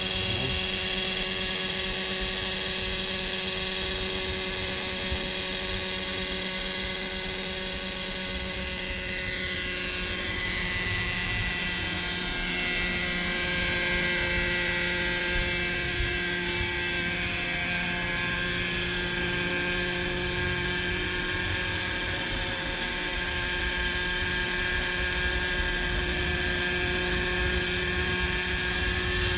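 Hirobo Sceadu radio-controlled helicopter running steadily with its rotor turning as it taxis across the water surface, its whine shifting in pitch about ten seconds in.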